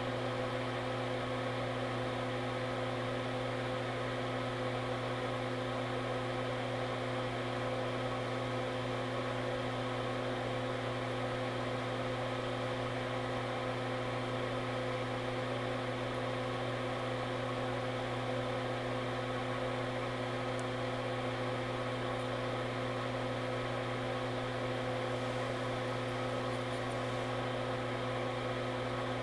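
Steady hum of a small fan or motor: a low drone with several fixed higher tones that never change.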